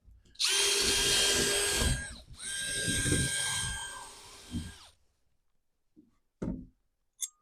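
Power drill running in two bursts of about two seconds each with a steady whine, the second run slowing and fading out. A short knock follows about a second and a half later.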